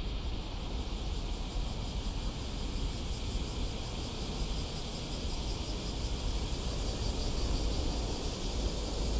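Steady outdoor ambience: a low wind rumble on the microphone under an even high hiss, with no distinct events.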